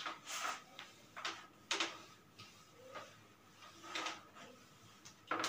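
Whiteboard duster wiping across a whiteboard: a series of short, faint swishes at uneven intervals, about one a second.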